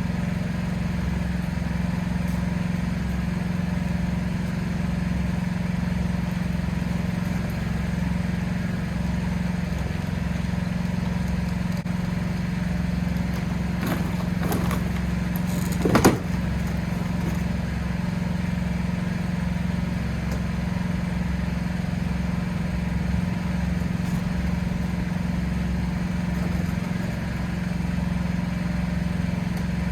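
Steady mechanical hum of a running motor, with a single sharp knock about sixteen seconds in and a few fainter clicks just before it.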